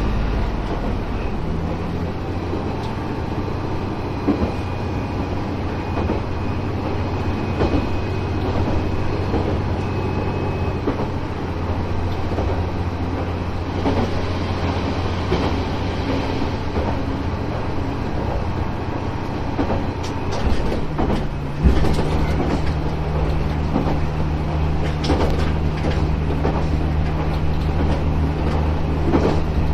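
Diesel railcar under way, heard from inside the car: the engine runs with a steady low hum while the wheels click over rail joints. About two-thirds of the way through, the engine note steps up to a higher steady pitch, with a single knock just after.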